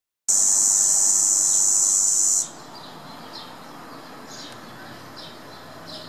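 Cicada singing a loud, steady, high-pitched buzz that cuts off suddenly about two seconds in. After it, faint short falling chirps repeat about once a second.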